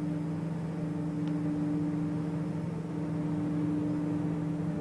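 A steady low hum with two held tones over a constant hiss, unchanging throughout.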